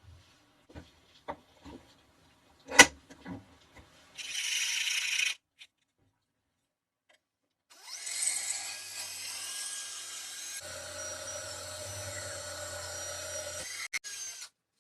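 Wooden pieces knocking as they are handled, with one sharp knock about three seconds in. Then a power tool cuts wood in a burst of about a second. After a short pause, a longer run of a power tool cutting wood with a steady motor hum stops abruptly near the end.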